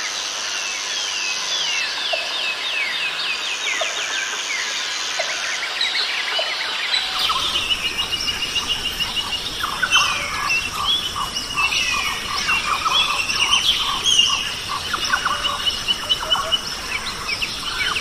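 A chorus of several birds calling over one another: rapid falling chirps at first, then trills and shorter whistled notes. About seven seconds in, a low steady background noise joins.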